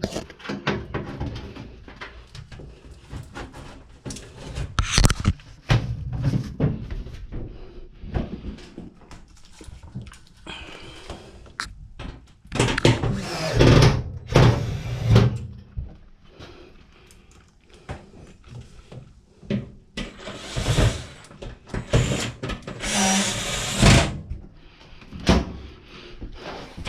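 Washer parts and panels being handled and fitted back on: irregular knocks, clunks and clicks, with longer scraping noises around the middle and again near the end.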